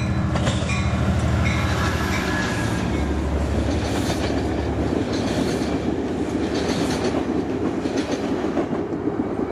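Metrolink diesel commuter train passing: a steady locomotive engine hum for about the first five seconds, then the rumble of the rolling cars' wheels with scattered clicks.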